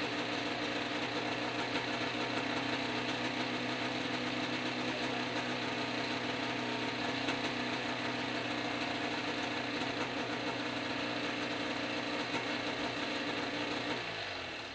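Small engine of a backpack helicopter running steadily at a fixed speed during carburetor tuning, then slowing with falling pitch and dying away near the end.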